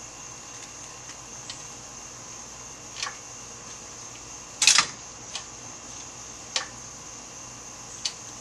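Scattered sharp metal clicks and clanks from an engine hoist and work on the engine as it is being lifted. The loudest is a double clank about halfway through. Underneath runs a steady high-pitched drone.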